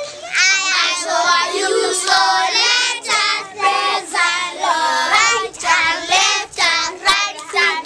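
A small group of young children singing a song together in unison, in short rhythmic phrases, with a few sharp taps among the singing.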